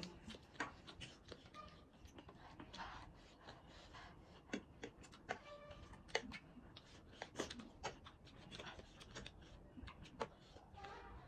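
Faint eating sounds: metal forks clinking and scraping on ceramic plates, with a few short squeaks, and chewing and slurping of noodles.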